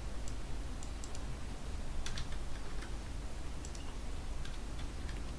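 Computer keyboard being typed on: scattered, irregular key presses over a steady low hum.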